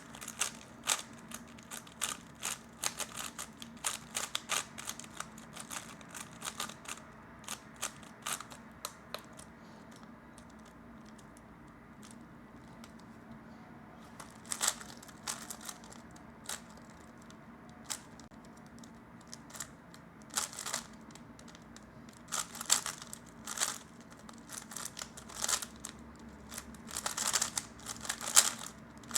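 3x3 speedcube's plastic layers being turned fast: quick runs of clicking and clacking with short pauses. There is a quieter stretch of a few seconds near the middle, then the turning picks up again in bursts.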